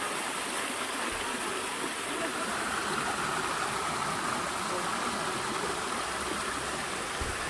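Mountain stream water rushing and splashing steadily over rocks in a small cascade.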